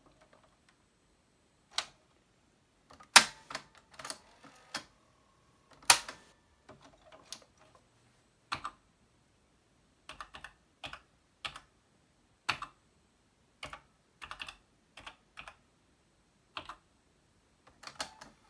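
Loud clicks at the back of a TRS-80 Model I keyboard unit as its power switch is pressed and the machine restarts, then separate keystrokes on its keyboard as short BASIC commands are typed. Near the end comes a quick cluster of clicks as a key on the cassette recorder is pressed.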